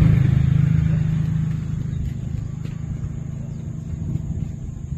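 Low engine hum of a motor vehicle going by, loudest at the start and fading away over the first couple of seconds, leaving a faint low rumble.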